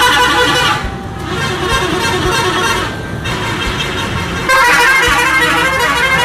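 Tour buses sounding multi-tone musical air horns (the Indonesian 'telolet' type), playing rapid warbling tunes in several bursts. The bursts get louder from about four and a half seconds in, over the running bus engines.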